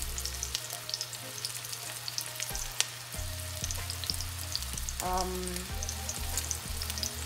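Hot oil sizzling with many small crackles as vegan meatballs fry in an enamelled Dutch oven, with more meatballs being set down into the pot.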